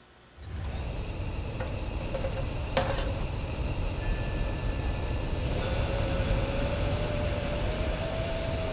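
Gas stove burner catching about half a second in, then burning with a steady low rush. A metal pot is set down on the burner grate with a single clink about three seconds in. From about halfway a thin tone slowly rises in pitch.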